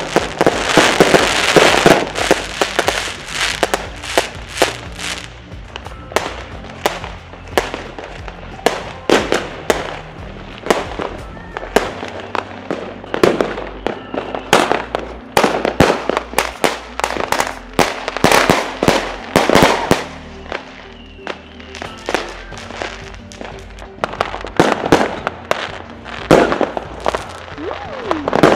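Fireworks going off in quick succession: aerial shots bursting with sharp bangs, several a second, and a loud spell of crackling about a second in, over background music.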